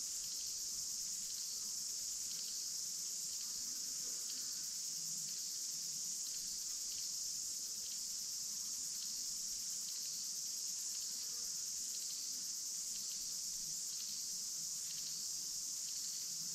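Steady high-pitched shrill of an insect chorus in the bush, with no breaks.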